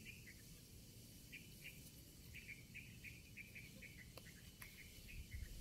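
A small bird chirping faintly: a run of short, high chirps, several a second with brief pauses.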